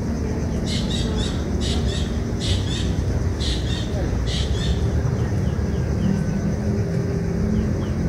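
Striated heron nestlings giving rapid, high chittering begging calls in about six short bursts over the first half, as the adult bends over them at the nest. A steady low rumble runs underneath throughout.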